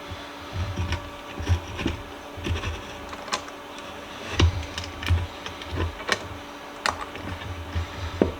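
Irregular light clicks and knocks with dull low thumps, about a dozen over the stretch, from metal parts being handled at the bench.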